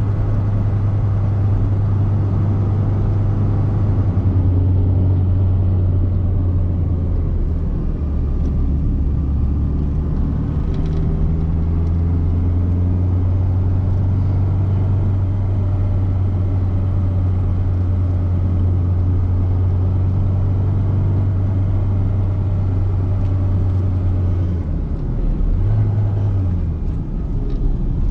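Fiat Seicento Sporting's 1108cc four-cylinder petrol engine running steadily under way, with a low engine hum and road noise. The engine note steps lower about eight seconds in, then dips and rises again near the end.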